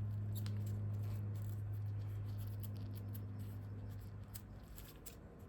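A steady low hum, with faint light clicks and rustles of tape being handled and pressed onto a wheel.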